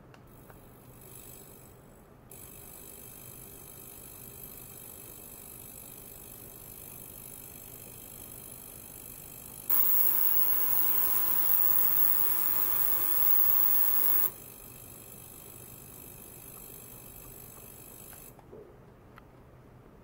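Ultrasonic cleaner running with stainless steel containers standing in its bath: a steady high hiss laced with many fine tones. It steps up about two seconds in and is much louder for about four seconds in the middle. It stops a couple of seconds before the end.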